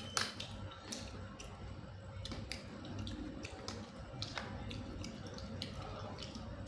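Sharp little clicks and taps about once a second, irregularly spaced: the shells of large blood cockles being pried apart and handled while eating.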